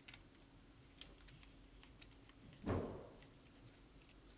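Faint clicks of a hex key turning the frame screws into a Planet Eclipse EMEK paintball marker, with one soft thump a little past halfway.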